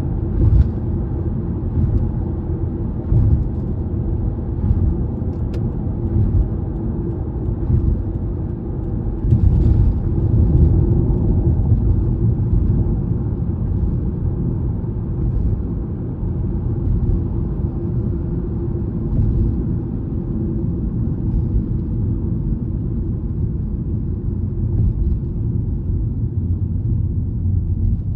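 Car's road noise heard from inside the cabin at expressway speed: a steady low tyre rumble, with a few light knocks as the tyres run over joints in the road, the clearest about nine seconds in.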